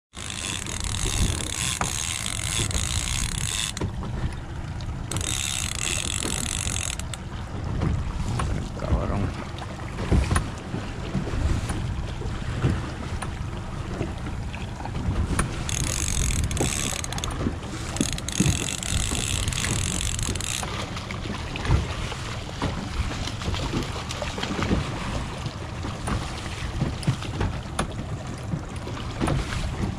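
Wind buffeting the microphone and water rushing past a moving outboard-powered boat at sea. A high-pitched whirring comes and goes four times.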